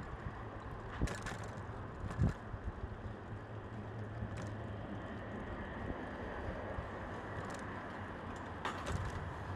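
Street ambience: steady traffic noise with wind on the microphone and a low hum, broken by a few short knocks or clicks about a second, two seconds, four seconds and nine seconds in.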